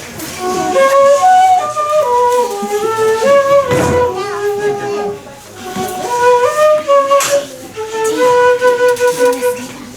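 A flute-like woodwind playing a short tune, stepping up and down through quick and held notes, with a brief knock about four seconds in.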